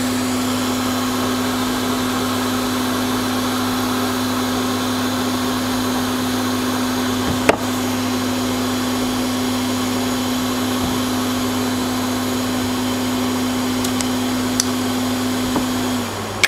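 Hot-air rework station blower running steadily with a constant hum while the station cools down, then switching off just before the end and winding down in falling pitch. A single sharp click sounds about halfway through.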